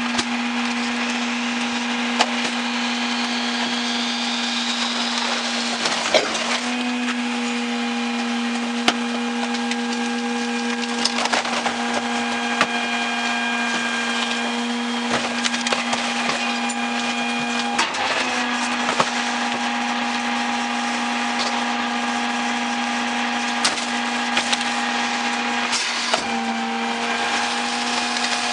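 Mack MRU garbage truck with a Leach rear-load body, its engine and hydraulics running at a steady pitch with a constant whine that shifts slightly a few times. Scattered metal clanks and knocks sound over it as the dumpster is handled.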